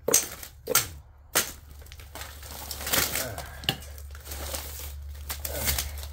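Transformer scrap, thin metal shims and paper insulation, being scraped up off the floor: a few sharp clinks and knocks in the first second and a half, then steady rustling and crinkling with scattered small clicks.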